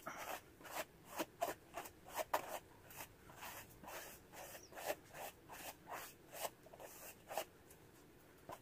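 Hair rustling as fingers rake repeatedly through long hair to work in dry shampoo: a quick series of soft swishing strokes, two or three a second, that stops shortly before the end.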